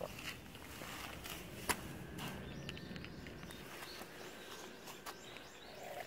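Quiet woodland ambience: faint rustling and scattered light clicks of movement over leaf-littered ground, with one sharper click just before two seconds in and faint bird chirps.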